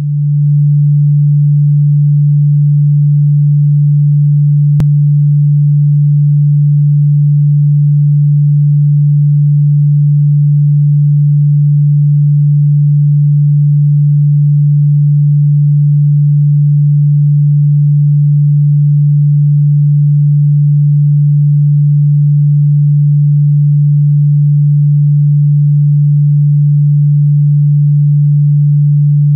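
A single low, pure electronic tone, held perfectly steady and loud, of the kind played as a chakra meditation frequency. It swells in at the very start, and there is a faint click about five seconds in.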